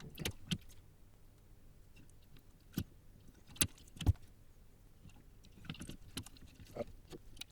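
Scattered light clicks and taps, a few seconds apart, from through-hole resistors being handled and their leads pushed into a small circuit board.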